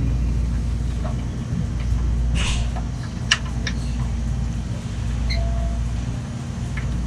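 A few light clicks and a brief rustle of hands working on parts, over a steady low rumble.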